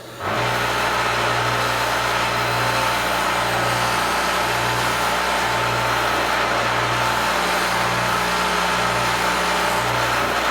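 Electric sharpening machine (Foley Belsaw Sharp All) switched on and running steadily: a loud, even motor hum with a strong hiss of the spinning wheel, starting abruptly just after the beginning.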